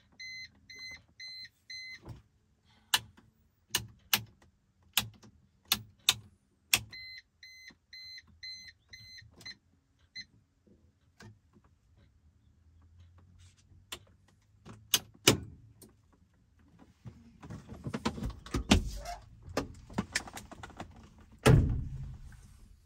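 Short electronic beeps repeating about two or three times a second in two runs, with sharp clicks in between, then rustling handling noise and a loud thump near the end.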